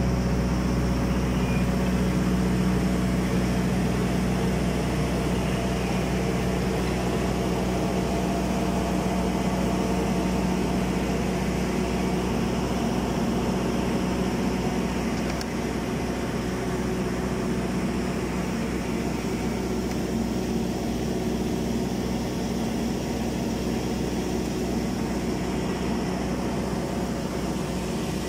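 Steady hum of running site machinery, holding several steady low tones, easing off slightly about halfway through.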